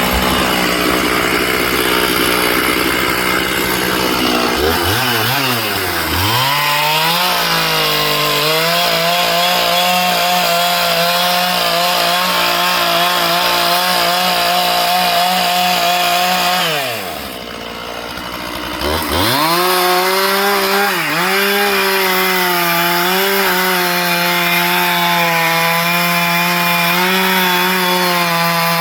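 Gas chainsaw running at high revs, cutting wood. Its pitch sags and recovers about a fifth of the way in. About two-thirds of the way in it drops sharply as the throttle comes off, then climbs back as the saw is revved up again.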